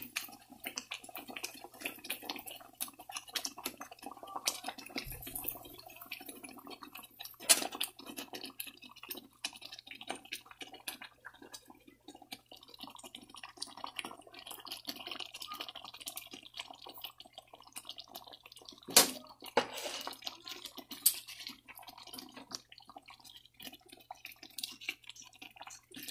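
Fish curry bubbling in a pan, a dense crackle of small pops, while a wooden spoon stirs it. The spoon knocks against the pan a few times, about seven seconds in and twice near twenty seconds.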